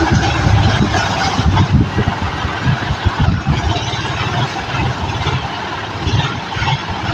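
John Deere 5050D tractor's three-cylinder diesel engine running at low revs as the tractor creeps forward, a steady, unevenly pulsing rumble.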